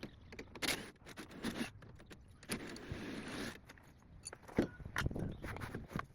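Metal hand tools and car parts clinking and knocking during a shock absorber replacement, with a brief hiss lasting about a second near the middle.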